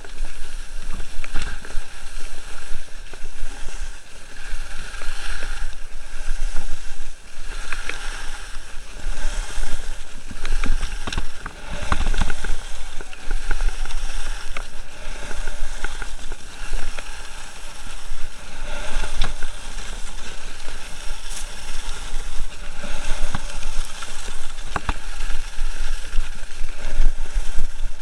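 Skis scraping and hissing over packed snow during a downhill run, with wind buffeting the microphone as a steady low rumble.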